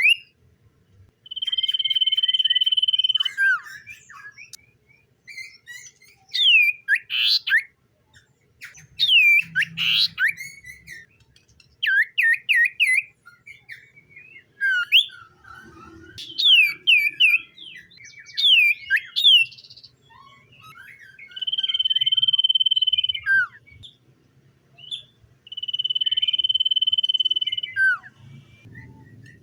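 Common iora singing: three long, steady, high whistles, each held about two seconds and dropping off at the end, with quick rising and falling chirps and twitters between them.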